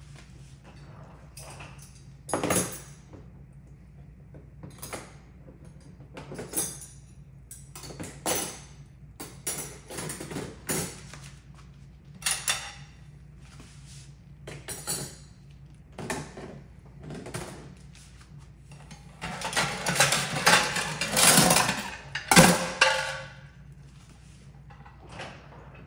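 Dishes and utensils clinking and knocking at irregular intervals as they are handled and loaded into a dishwasher rack, with a busier, louder clatter near the end. A steady low hum runs underneath.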